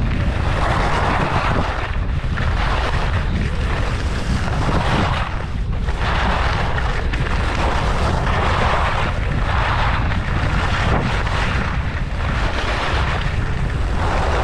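Skis carving down groomed snow, a scraping hiss that swells and fades with each turn every second or two, over a steady low rumble of wind on the microphone.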